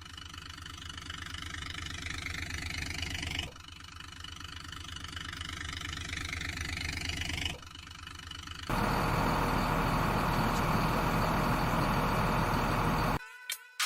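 Vehicle engine running, growing louder twice, then running loudly and steadily before cutting off suddenly near the end.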